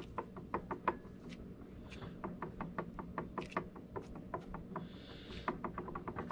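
Faint irregular clicking and knocking, several clicks a second, as the flywheel of a Homelite Super XL Automatic chainsaw is rocked back and forth by hand: the loose parts of a failed flywheel-side crankshaft bearing moving inside.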